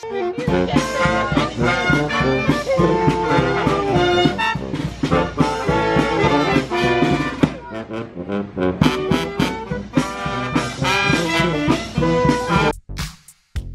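A live brass band playing an upbeat jazz tune, trombone to the fore with other horns, over a steady beat; the music cuts off abruptly near the end.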